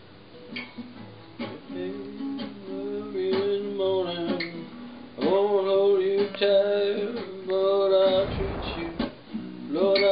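Acoustic guitar played solo, picking single notes and chords as the intro to a song, before the vocal comes in. A brief scrape about eight seconds in.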